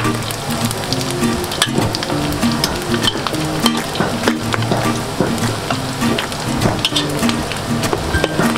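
Fish-sauce-marinated pork belly chunks deep-frying in hot oil in a metal wok: a steady sizzle full of sharp crackles and pops of spattering oil, with a metal spatula stirring through the pieces.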